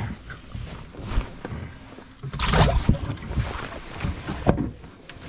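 Knocks and clatter in a small fishing boat, with a loud burst of rushing noise about two and a half seconds in.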